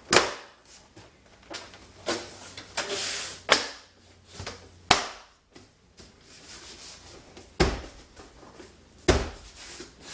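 Irregular sharp clicks and knocks from work on the car, about seven in all, with faint handling noise between them; two heavier thuds come in the second half.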